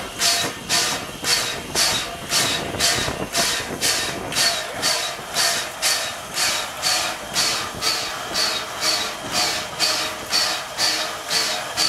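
Exhaust of the 1910-built former Canadian National 2-6-0 steam locomotive No. 89 working steadily under steam: sharp, even chuffs, just under two a second.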